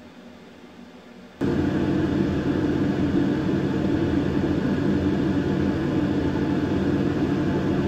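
Faint steady hiss, then about a second and a half in a loud, steady mechanical drone with a low hum starts abruptly and runs on unchanged.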